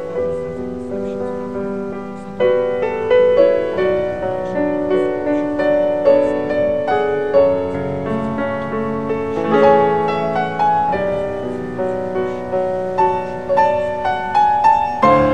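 Piano music: a melody of struck notes played without a break.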